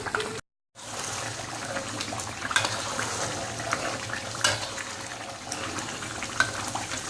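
Blended dried-chili paste bubbling and sizzling in plenty of oil in a pan, a wet, steady spluttering. A few sharp clicks, such as a spatula knocking the pan, come about two and a half, four and a half, and six and a half seconds in.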